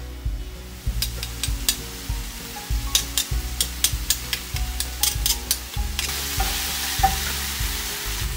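Sliced mushrooms frying and sizzling in a pan, with quick clicks and scrapes as garlic is scraped in off a knife and a wooden spoon stirs them. The sizzle grows louder and steadier for the last couple of seconds.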